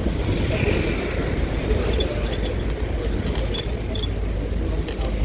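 City road traffic heard from a bicycle creeping along behind cars: a steady low rumble of engines and tyres, with short bursts of a thin, very high-pitched squeal from about two seconds in.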